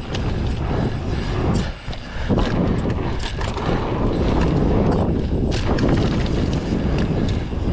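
Wind buffeting the microphone: a loud, steady rumble with a short dip just under two seconds in.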